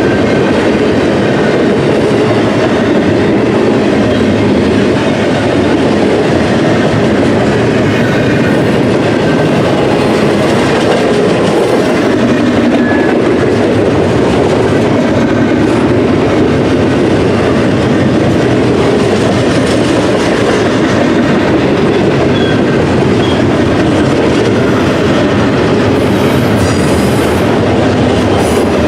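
Intermodal freight train cars rolling past close by, a loud, steady rumble of steel wheels on the rails.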